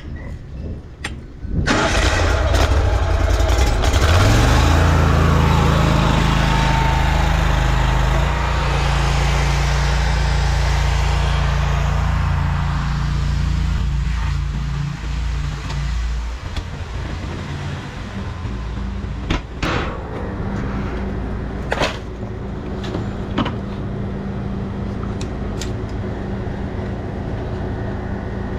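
Engine of a trailer-mounted high-pressure drain jetter starting up about two seconds in, rising in pitch as it comes up to speed and then running steadily. About sixteen seconds in its note drops to a quieter, lower steady hum, with a few sharp knocks later on.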